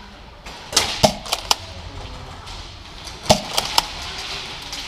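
Airsoft fire: a cluster of four sharp snaps about a second in, then three more a little past three seconds.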